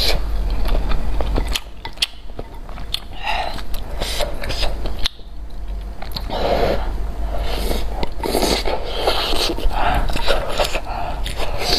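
Close-miked eating of spicy malatang noodles: chewing and biting with many small smacking mouth clicks, and chopsticks scraping in a glass bowl of dipping sauce.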